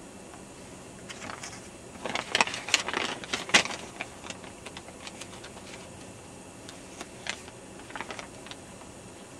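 Handling noise close to the microphone: scratchy clicks and rustling, thickest from about two to four seconds in, then a few scattered single clicks over a steady background hiss.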